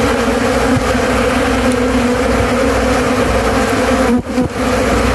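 Steady, loud hum of a mass of honeybees (Apis mellifera) flying around an opened hive, stirred up by smoke while frames are being moved; the hum dips briefly about four seconds in.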